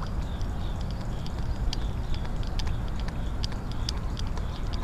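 Outdoor background noise: a steady low rumble with scattered short, sharp, high-pitched ticks.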